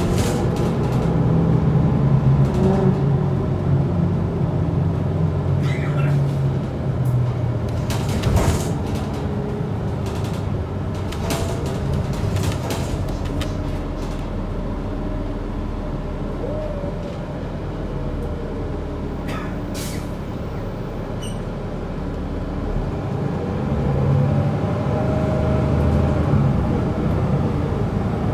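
Cabin sound of a 2021 Gillig BRT bus with a Cummins L9 diesel and Allison B3400xFE automatic transmission, driving in town. The engine note is strong at first, fades through the middle and builds again near the end as the bus pulls away harder, with a few sharp clatters from the cabin along the way.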